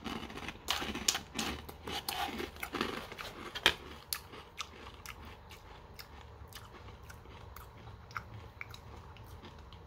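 Mouth chewing a spoonful of Lucky Charms cereal with marshmallows in oat milk: dense, crisp crunches over the first four seconds, the sharpest about three and a half seconds in, then softer, sparser chewing.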